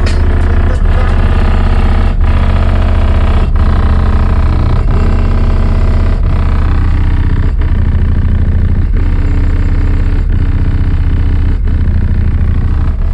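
Bass-heavy music playing loud through a car's sound system, with deep bass notes under a steady beat that pulses about every second and a half.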